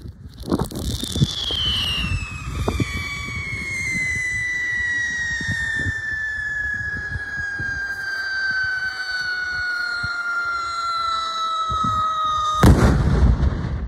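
SCREAM ground salute firework screaming: one shrill whistle that dips sharply at the start, then glides slowly down in pitch for about twelve seconds. A loud bang from the 1000-gram salute cuts it off near the end.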